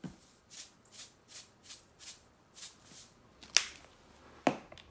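A salt-and-pepper shaker shaken over a bowl about eight times, each stroke a short rattling hiss of grains, about three a second. Two sharp clicks follow near the end.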